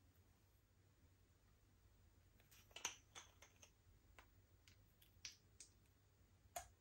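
Slime being handled: faint, sticky clicks and pops, about eight scattered over several seconds, most of them in the second half.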